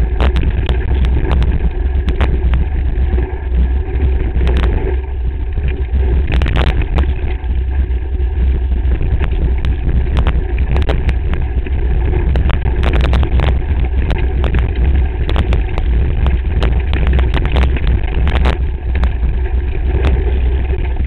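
Mountain bike rattling down a rocky trail, picked up by a camera mounted on the handlebars: a constant deep rumble of wind and vibration with frequent, irregular sharp knocks as the bike jolts over stones.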